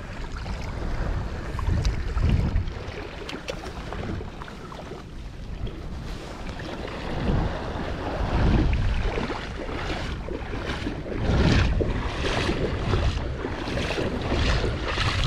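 Wind buffeting the microphone in gusts over shallow seawater lapping, with a run of short sharp sounds in the last few seconds.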